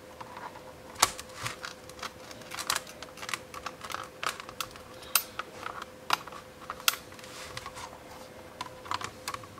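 Thin steel palette knife scraping and clicking under a PETG 3D print as it is pried off a steel build sheet, giving irregular sharp clicks and snaps as the print's edges release from the bed, the loudest about a second in. A faint steady hum runs underneath.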